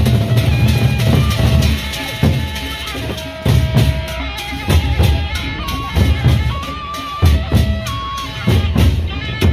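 Gendang beleq, a Sasak ensemble, playing on the march: large double-headed barrel drums beaten in a driving rhythm, with cymbal clashes and a held, stepping melody line over the drums. The heavy drumming thins out about two seconds in.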